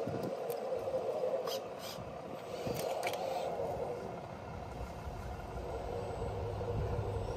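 Radio-controlled model truck running: a steady whine from its motor and gears, with a few light clicks in the first half.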